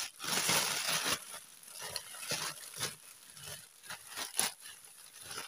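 Bubble wrap and a plastic courier mailer crinkling and rustling as they are handled and pulled apart. A dense rustle in the first second, then scattered crackles.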